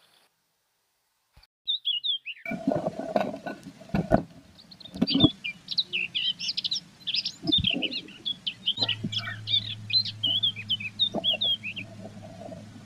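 Blue tits giving rapid, high, twittering chirps at the nest box, sped up by playback at 1.3 times speed, starting about two seconds in. A few sharp knocks and scrapes, typical of the bird moving against the wooden box, come early on. A steady low hum comes in about two-thirds of the way through.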